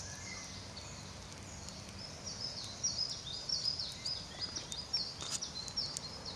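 A small songbird singing a fast series of short, repeated high notes, starting about two seconds in, over a steady background hiss.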